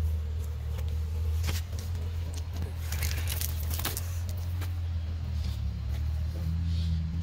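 A steady low motor hum drones throughout. Over it come brief crackles and rustles of a nylon cast net and the carp caught in it being handled, mostly a little past the middle.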